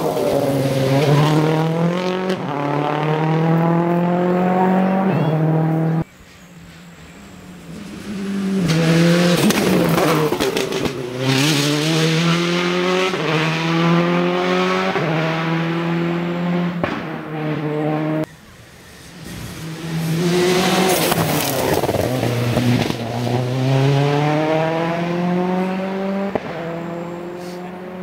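Three rally cars in turn accelerate hard out of a bend, engines climbing in pitch and dropping back at each upshift. The first is a Ford Focus WRC. Each pass ends with a sudden cut at about 6 and 18 seconds in.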